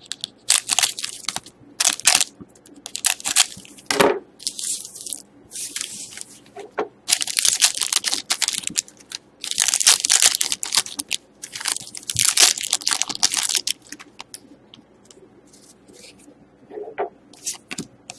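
Foil trading-card pack wrapper crinkling and tearing open in a quick run of sharp rustling bursts, which thin out to a few faint ticks about three-quarters of the way through.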